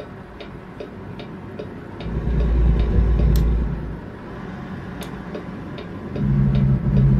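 A truck's turn-signal flasher clicking steadily, about two and a half clicks a second, inside the cab, over the low rumble of the truck's engine, which swells twice.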